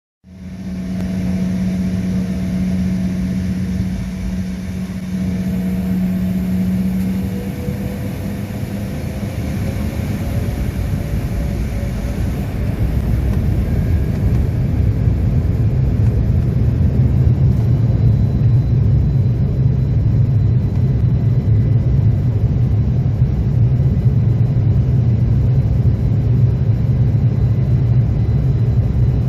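Airliner engines running with a steady hum, a tone rising about eight seconds in as power builds, and a deep rumble that grows louder from about fourteen seconds in: the aircraft's take-off run.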